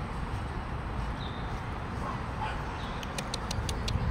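Faint dog yips over a steady low rumble, with a quick run of sharp clicks near the end.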